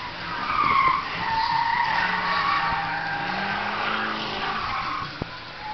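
Tyres of a twin-turbo Corvette squealing as it slides sideways and spins out on the autocross course, loudest about a second in. The engine is heard under the squeal, its note rising a few seconds in.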